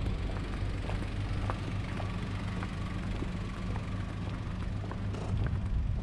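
An engine running steadily with a low hum, with faint scattered clicks over it.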